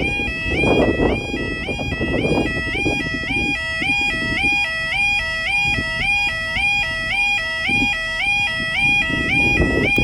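Level crossing warning alarm sounding continuously, a shrill electronic two-tone yodel that steps back and forth between two pitches, over a low rumbling noise.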